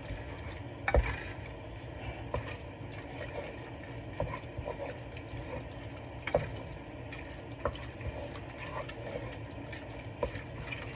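Lamb taco meat frying in a pan, a steady sizzle with occasional sharp clicks of a utensil against the pan as it is stirred.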